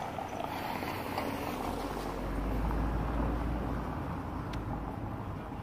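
Street traffic noise: a car passing, a low rumble that swells about a third of the way in and fades near the end.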